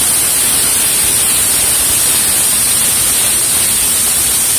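Aluminium stovetop pressure cooker venting steam through its weighted valve: a loud, steady hiss that shows the cooker is at full pressure.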